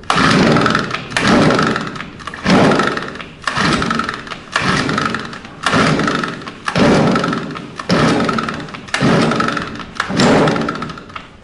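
A small petrol engine being pull-started by its recoil cord about ten times, one rasping pull a second, without catching. The engine won't start, which they put down to too little petrol.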